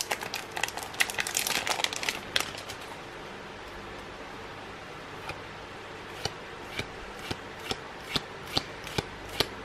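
Foil booster-pack wrapper crinkling as the trading cards are pulled out of it. From about six seconds in, short snaps come about two a second as cards are flicked one by one from the back of the stack to the front.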